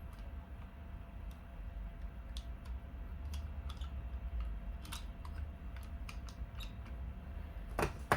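Small clicks from a toy revolver being handled, coming irregularly, with a sharper, louder click near the end, over a low steady rumble.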